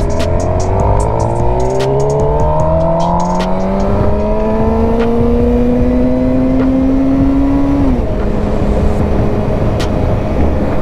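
750cc motorcycle engine pulling under throttle, its pitch rising steadily for about eight seconds, then dropping suddenly and running on steady, with wind rushing over the microphone.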